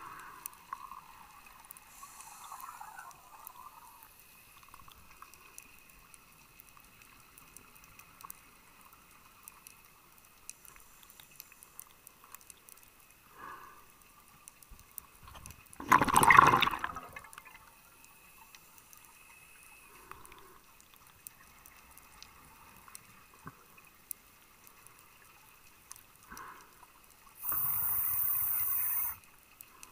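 Scuba diver breathing through a regulator underwater. A loud bubbling burst of exhaled air comes about halfway through, and a steady hiss of about a second and a half near the end is a breath drawn through the regulator, with faint water noise between.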